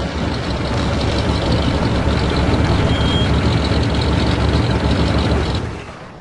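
Heavy truck engine running, loud and steady with a strong low end, then fading away near the end.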